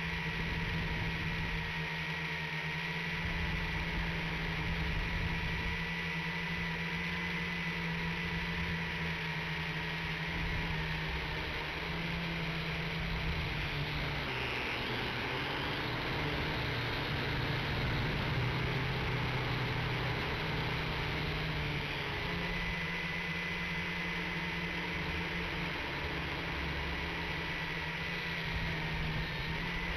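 WLtoys V959 quadcopter's motors and propellers running in flight, a steady buzzing hum with a thin whine above it. The pitch drops for several seconds midway and then rises back as the throttle changes.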